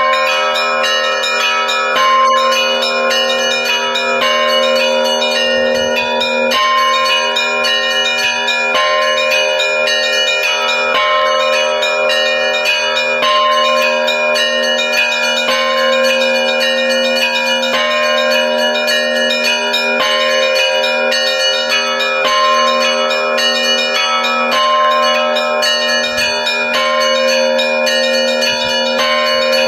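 Russian church bells rung together in a continuous peal (kolokolny zvon): a deep bell rings steadily under a dense pattern of quick strikes on smaller bells, with one higher bell struck about every two seconds.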